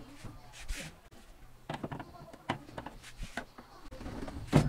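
Irregular clicks and knocks from a CRT television's cabinet being handled, with one louder thump near the end.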